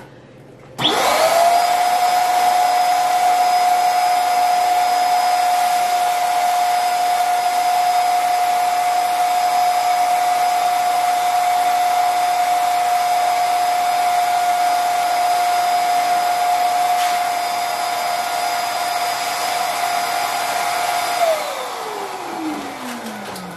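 Electric balloon inflator running steadily with a high motor whine as it fills a foil pumpkin balloon. It switches on about a second in and, near the end, is switched off and spins down, its pitch falling.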